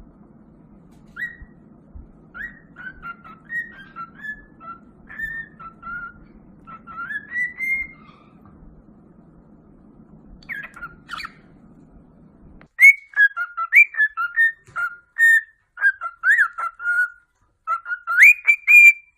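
A run of short, high chirping calls, many gliding up or down in pitch. A low hum under them stops abruptly about two-thirds of the way through, and from there the chirps are louder and come in quicker succession.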